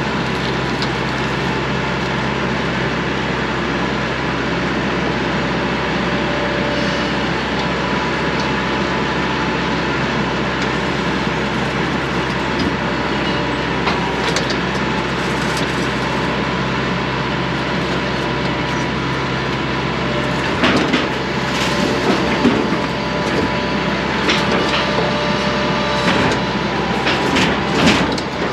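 Steady mechanical running noise with a constant hum, joined about two-thirds of the way through by an irregular run of knocks and clanks.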